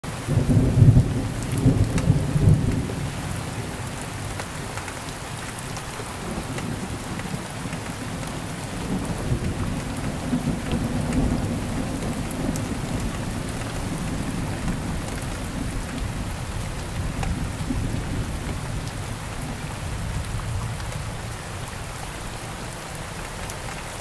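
Steady tropical rain falling on palm fronds and broad leaves, with a low rumble of thunder that is loudest in the first few seconds and rolls on more softly until it fades near the end.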